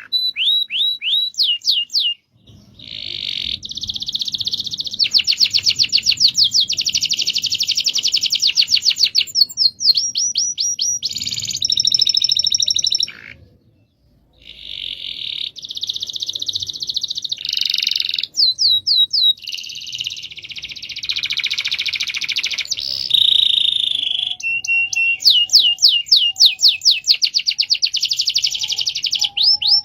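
Domestic canary singing long rolling trills: very fast repeated notes run together, mixed with series of quick, downward-sweeping whistles. The song breaks off briefly twice, about two seconds in and near the middle.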